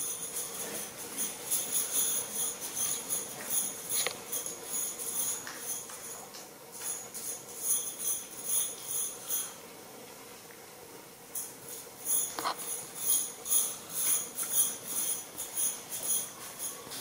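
Small bells jingling in quick, irregular shakes, stopping for about a second and a half around the middle and then starting again.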